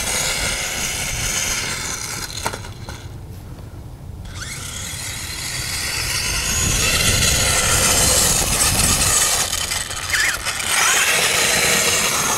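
Brushless electric motor of a radio-controlled rock buggy whining as the truck drives over dirt, over a low rumble. The whine fades a few seconds in, then rises again as the truck speeds up.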